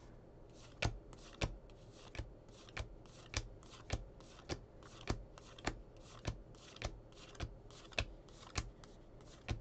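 2021 Topps Heritage baseball cards being thumbed off a stack one at a time, each card giving a short papery snap at a steady pace of a little under two a second.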